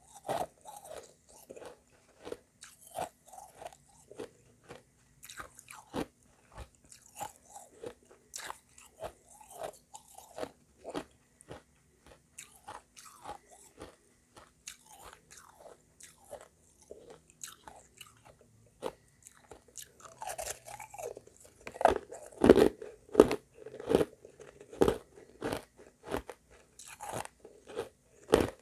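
Close-up crunching and chewing of refrozen shaved ice mixed with crushed ice: a steady run of hard, sharp crunches as the ice is bitten and ground between the teeth, louder and faster for several seconds past the middle.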